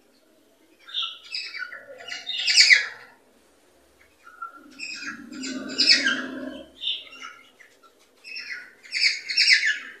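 Cockatiels chirping and whistling in three quick bursts of short, repeated notes, separated by brief pauses.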